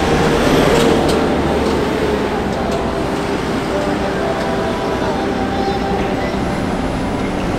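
Steady city street traffic: vehicles running through an intersection, with a held engine hum and a few brief clicks near the start, and voices in the background.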